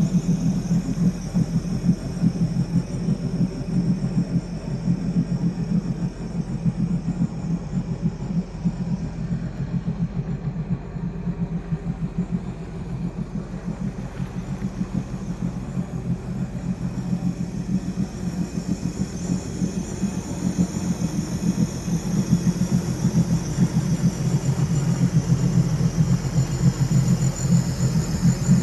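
Boat engine running at low speed: a steady, pulsing low rumble.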